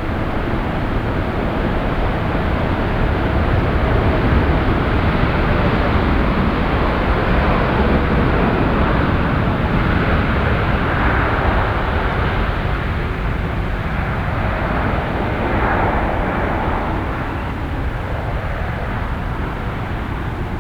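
Jet airliner engine noise, a steady rushing roar that swells and eases as the aircraft moves past, then dies down a little near the end.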